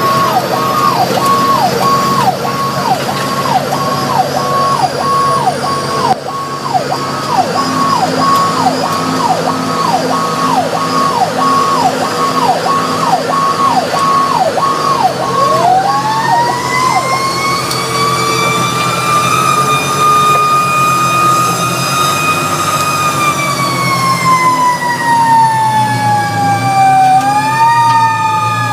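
Fire engine sirens over the truck's engine. For the first fifteen seconds a siren repeats quick falling sweeps, a little more than one a second. Then a second, deeper siren winds up over about two seconds, holds a steady wail, and winds slowly down, kicked back up briefly near the end.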